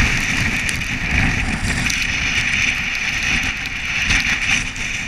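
A nearby generator running steadily under gusting hurricane wind that rumbles and buffets on the microphone, with a constant hiss over it.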